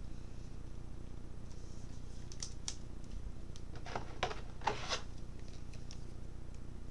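Baseball cards being handled and slid against one another: a few short rustles and scrapes, about two and a half seconds in and again from about four to five seconds in, over a steady low hum.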